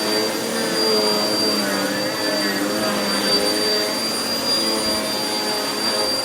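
Vacuum cleaner running on carpet: a steady high whine over a rushing noise, with a lower hum that wavers in pitch as the cleaner is worked back and forth.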